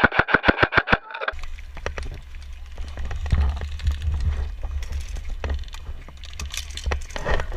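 Airsoft rifle firing a short rapid burst of about ten evenly spaced shots right at the start, followed by low rumbling handling and wind noise with scattered clicks and knocks.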